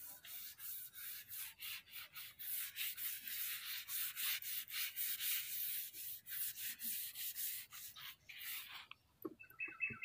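Flat paintbrush stroking wet wood finish onto a wooden slab: quick, even swishes, about two to three a second, that stop near the end.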